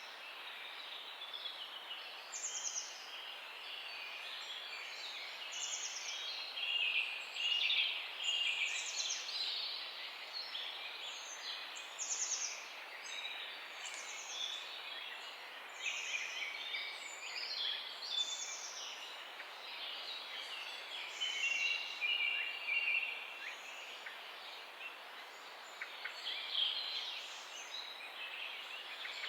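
Several songbirds chirping and singing together in a morning chorus, with one bird repeating a short high note every second or two over a busy tangle of lower chirps.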